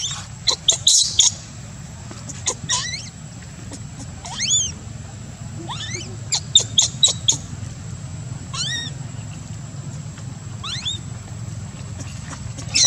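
Baby macaque crying: high-pitched squeals, some single calls rising in pitch every second or two, others in quick runs of short sharp squeaks.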